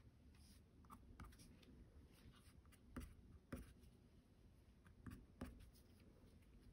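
Faint tapping and scratching of a white colored pencil's tip dotting water droplets onto toned mixed-media paper, with four sharper taps in two pairs past the middle.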